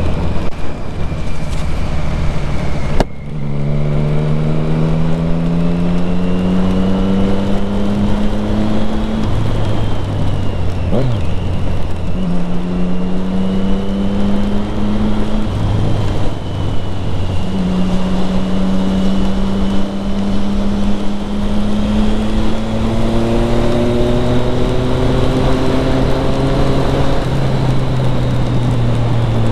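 Triumph Street Triple 675R's three-cylinder engine running under way, its pitch climbing slowly over several seconds in three long stretches with short breaks between. Wind rush and wet-road tyre noise run under it.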